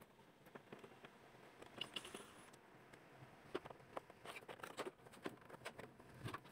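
Faint, scattered plastic clicks and taps from hands taking apart an air conditioner indoor unit's casing.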